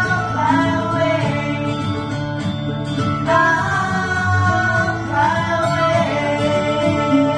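Music: a song with a singer's voice over guitar accompaniment.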